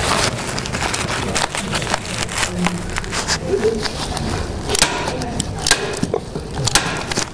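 Hand stapler snapping staples through a Pro Clima Intello Plus airtight membrane into a timber stud, several sharp clicks at irregular intervals, with the plastic membrane rustling as it is handled and pulled.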